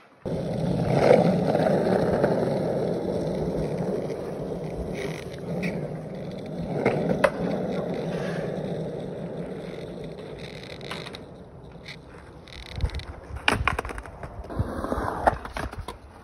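Skateboard wheels rolling through a concrete bowl, starting suddenly, loudest in the first couple of seconds and fading slowly as the board slows. A few sharp knocks near the end.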